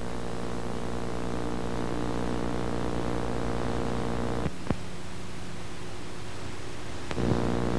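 Steady electrical hum with many overtones, with a light hiss beneath it, interrupted by two short clicks about four and a half seconds in; the hum thins after the clicks and returns fuller shortly before the end.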